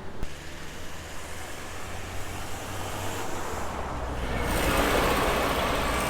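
Motor vehicle noise: a steady low engine hum with road noise that grows louder about four and a half seconds in.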